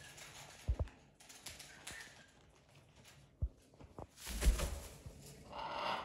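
Raccoon scrambling over a leather sofa: scattered light knocks and scratches from its claws and body, with a louder thump and rustle about four and a half seconds in.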